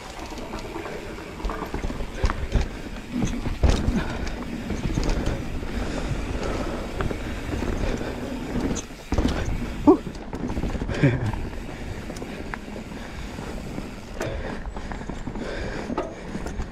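Mountain bike riding down a rough dirt trail: tyres rolling on dirt and the bike knocking and rattling over bumps, with rushing noise throughout.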